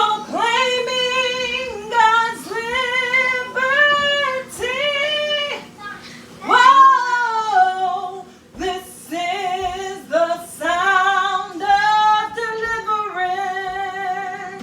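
A single high voice singing a spontaneous worship melody in held phrases, some gliding up or down, with short breaths between them.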